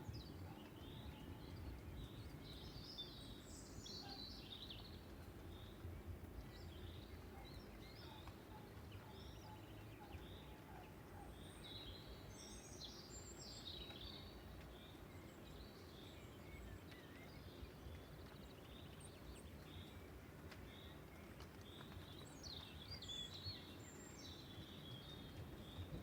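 Small birds chirping and trilling faintly over a low, steady background of distant storm noise, in a lull between thunder rumbles. The tail of a rumble dies away in the first second.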